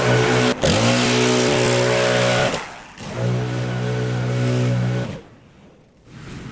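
Pressure washer running with a steady drone; about half a second in there is a click and its pitch dips and recovers. The sound fades out about two and a half seconds in, comes back, and stops abruptly about five seconds in.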